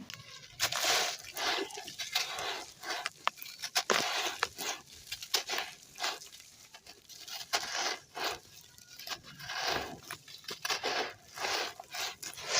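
Chunks of handmade gritty red sand crumbling and crunching in water: an irregular run of short crackling bursts and sharp snaps.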